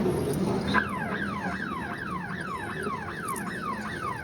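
Electronic alarm of rapid downward-sweeping tones, about three a second, starting about a second in.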